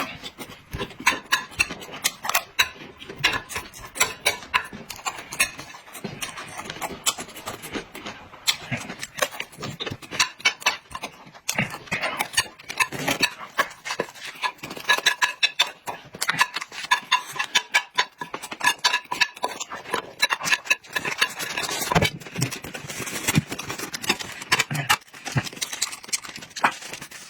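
A person eating noisily close to the microphone: a rapid, continuous run of wet chewing and lip-smacking clicks.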